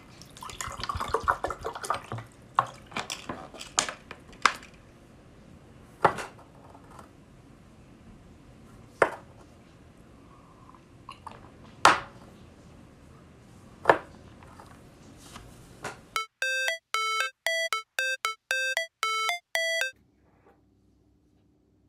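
Water poured from a plastic bottle into a drinking glass, followed by a few scattered sharp clicks. About sixteen seconds in comes a quick run of about ten short, bright pitched notes, a brief melody.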